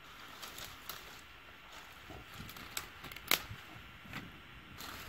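Dry twigs and dry grass crackling and snapping as they are handled and catch fire: a scatter of sharp clicks, the loudest about two-thirds of the way through.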